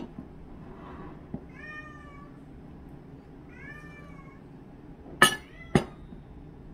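A cat meows twice, short calls that rise and fall in pitch. A glass mug knocks on a wooden table at the start and twice more, loudest, about five seconds in as it is set back down.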